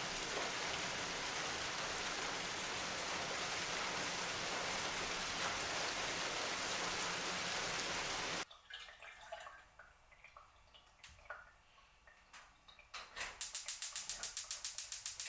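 Steady, heavy rainfall hiss that stops abruptly about eight seconds in. Then come a few faint small clicks, and near the end a fast, even ticking rattle, about eight ticks a second.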